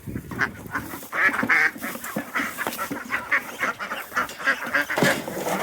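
Several domestic ducks quacking over and over in a busy chatter of short calls, about three a second.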